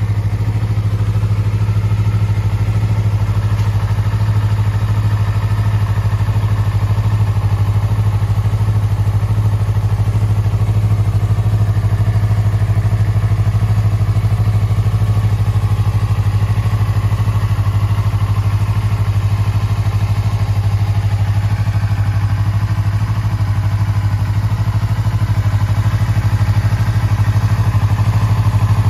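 Yamaha YZF-R25's 249 cc parallel-twin engine idling steadily through an aftermarket muffler.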